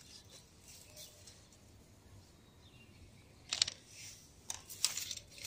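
Dry leaves and stems of potted vegetable plants rustling as a hand picks through them, in a few short, crackly bursts in the second half; only faint before that.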